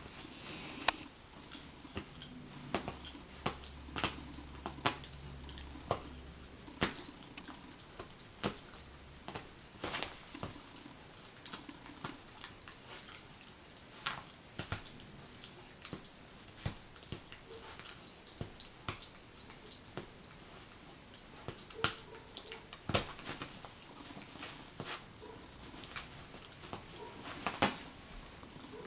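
Jack Russell terrier chewing and gnawing a fuzzy squeaky toy: irregular soft clicks and snaps of teeth, with small wet mouthing sounds.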